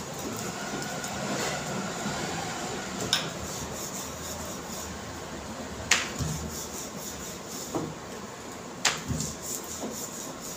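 Wooden rolling pin rolling dough on a round board: a steady soft rubbing, with a sharp knock about every three seconds.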